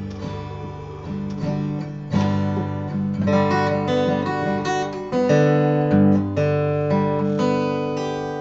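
Acoustic guitar strumming chords, a new chord struck about once a second, with no singing.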